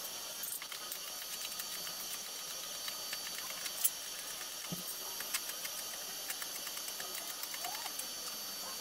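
Electric arc welding on a steel square-tube grille: a steady crackling hiss from the arc, peppered with quick pops.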